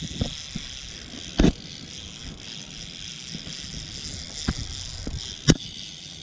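Low wind rumble on the microphone, broken by a handful of sharp knocks and clicks from fishing gear being handled in an inflatable boat. The loudest knocks come about a second and a half in and again near the end.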